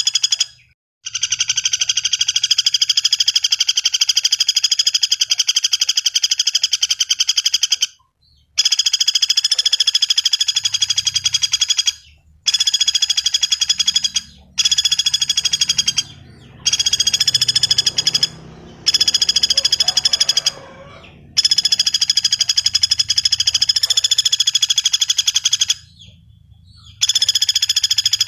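Pelatuk bawang, a small woodpecker, giving a fast, buzzy trill in long runs of a few seconds each, broken by short pauses about eight times. A faint low hum sits underneath.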